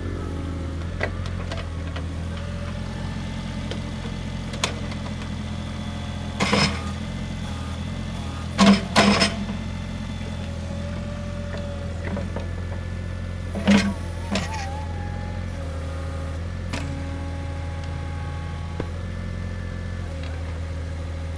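Diesel engine of a compact digging machine running steadily, with faint steady hydraulic tones above it and a few loud metal clanks: one about six seconds in, two close together near nine seconds, and one near fourteen seconds.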